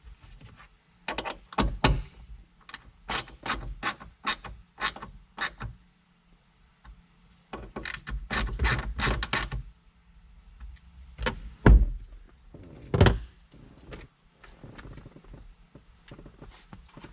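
Hand work on a truck's roof clearance light housing and its bolts: runs of quick clicking and rattling, then two sharp knocks about two-thirds of the way through.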